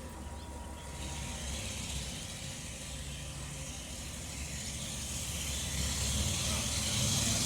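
Heavy diesel engine running with a low rumble that grows slowly louder, with a hiss building up in the last couple of seconds.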